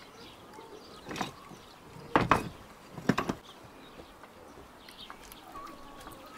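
A few short knocks: one about a second in, a louder cluster about two seconds in, and another pair around three seconds in.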